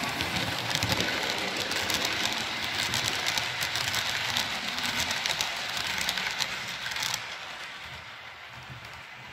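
HO-scale model Glacier Express train running past close by on the layout's track, its wheels making a rapid, irregular run of clicks and rattle over the rails. The sound drops away sharply about seven seconds in and then fades as the train moves off.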